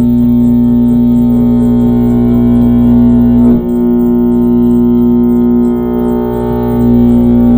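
Loud electronic drone from a no-input mixer: a held low tone with stacked overtones, briefly dipping about three and a half seconds in, with faint regular ticking high above.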